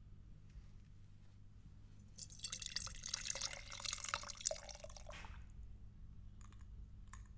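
Liquid pouring into a glass for about three seconds, starting about two seconds in, followed by a few faint clicks.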